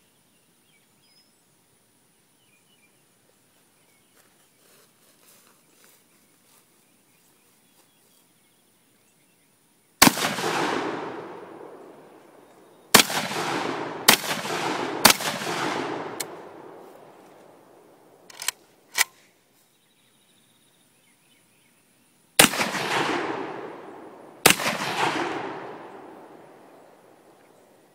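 Saiga 12 semi-automatic 12-gauge shotgun firing 2¾-inch 1-ounce rifled slugs: six loud shots, each with a long echo dying away. The first comes about ten seconds in, then three about a second apart, then two more near the end.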